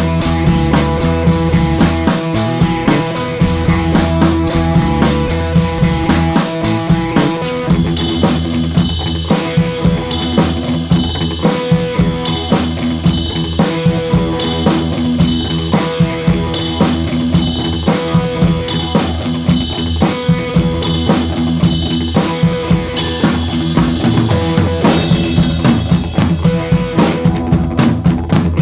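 Background music with a steady, fast drum-kit beat.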